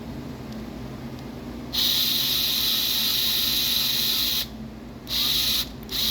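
Hissing spray in three sharp-edged bursts: a long one of nearly three seconds starting about two seconds in, a short half-second one, then another long one.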